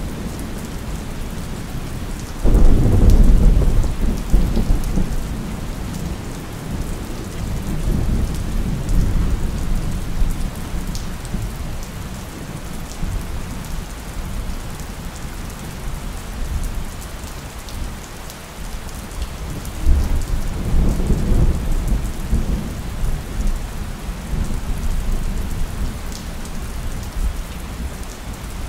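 Steady rain falling throughout, with thunder. A sudden loud clap comes about two and a half seconds in and rumbles away over several seconds. A second, softer roll of thunder follows about twenty seconds in.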